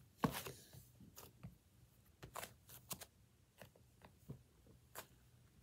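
Hands kneading and pulling a lump of clay-like slime, giving faint sticky clicks and pops at irregular intervals, the loudest just after the start.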